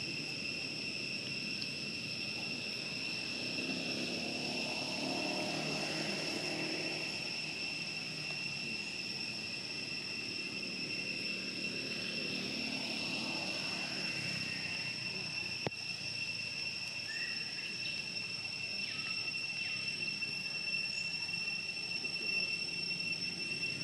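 A steady, high-pitched insect drone, with a low distant rumble that swells a few seconds in and fades out a little after the middle.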